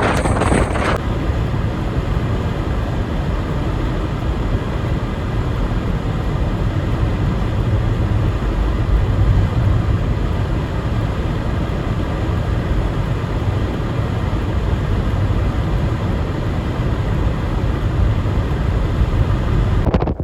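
A vehicle running: a steady low rumble with a faint hum.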